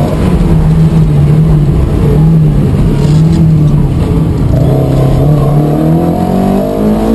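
Opel Manta rally car's engine running hard, its revs rising and falling.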